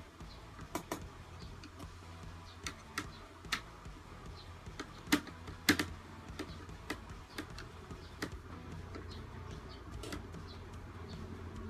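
Small screwdriver turning screws in the plastic housing of a laptop cooler's turbine fan: scattered sharp clicks and ticks of metal on plastic, the loudest pair about five to six seconds in, over a steady low hum.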